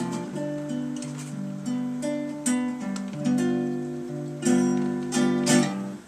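Acoustic guitar strummed slowly, each chord left to ring before the next, closing out the song.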